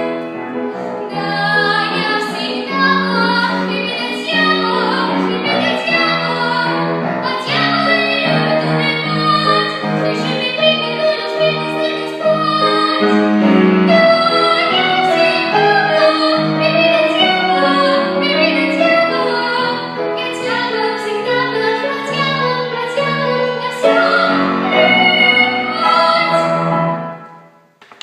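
A female voice singing a song over instrumental accompaniment with piano; the music ends a second or so before the close.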